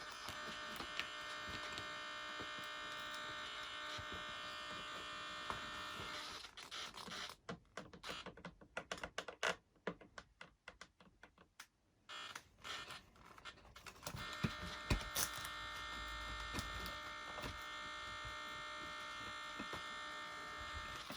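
Steady electrical buzz with a high whine from a powered-up RC plane's electronics on the bench. It breaks up and nearly drops out between about seven and fourteen seconds in, then returns.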